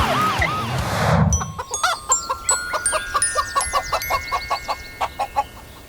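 A siren wailing up and down for about the first second, then a chicken clucking in a run of short clucks, over a rising run of high chiming notes.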